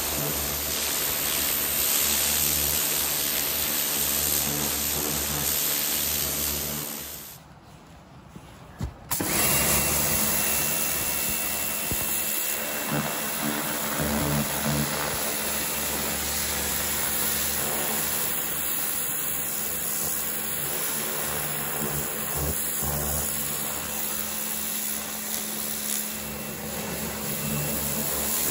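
Kärcher K3 electric pressure washer running with its fixed high-pressure power lance: the motor and pump hum steadily under the hiss of the jet blasting dirt off the paving. About seven seconds in it stops for roughly two seconds, then starts up again.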